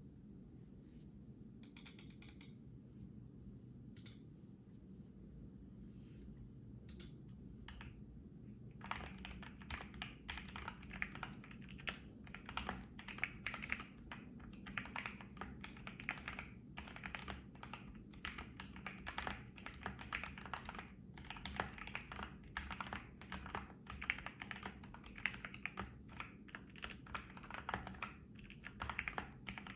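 Typing on a foam-modded BM65 mechanical keyboard with lubed, filmed Gateron Black Ink V2 linear switches and PBT keycaps. A few scattered keystrokes come in the first several seconds, then steady, fast typing starts about nine seconds in.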